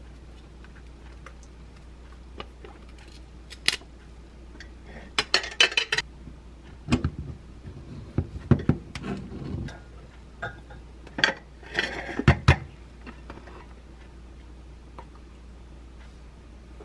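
Kitchen tableware being handled: scattered knocks and clinks of a plastic dessert tub, a knife and enamel dishes set down and moved on a counter, with two brief bouts of rustling. The knife works at a cake too frozen to cut cleanly; the last few seconds are quiet.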